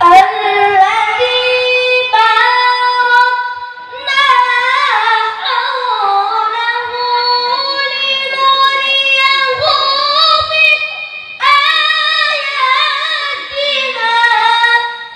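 A boy reciting the Quran in melodic tilawah style: a high voice holding long, ornamented notes that bend and waver, in phrases with short breaks about 2 and 4 seconds in and a fresh loud phrase near 11 seconds.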